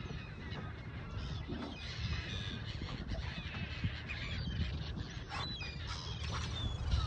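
A flock of seagulls calling, many short overlapping cries throughout, over a steady low rumble. The gulls are working a shoal of feeding fish.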